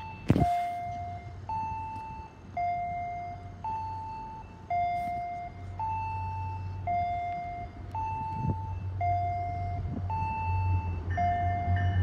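Electronic two-tone chime alternating high and low, about one note a second, each note struck and fading. Under it, the low engine hum of an approaching diesel commuter train grows louder toward the end. A short burst of noise comes just after the start.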